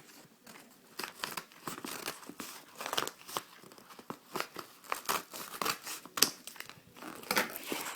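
Packaging being cut and torn open, crinkling and ripping in irregular crackles, sparse in the first second and busier after.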